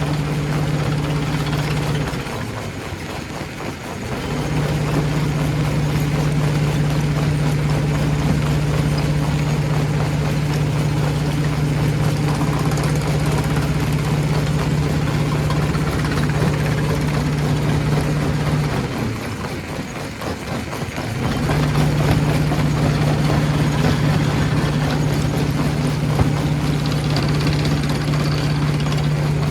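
Stone crusher machine running: a steady low mechanical drone under a rough grinding rumble. The drone drops out twice, briefly.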